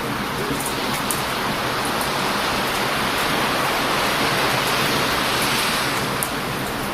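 Strong ocean surf breaking on a beach: a wave's rush swells over a few seconds and eases off near the end. A wood bonfire gives a few faint sharp crackles over it.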